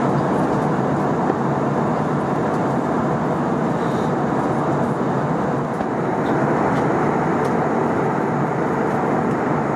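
Steady cabin noise inside an Airbus A321 airliner in flight: an even rush of engine and airflow noise, holding at a constant level.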